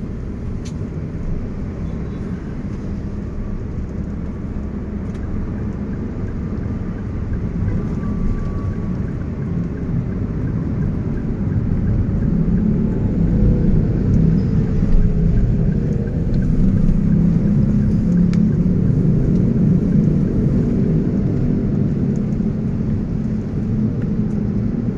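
Engine and road rumble inside a moving taxi's cabin, a steady low drone that grows louder about halfway through.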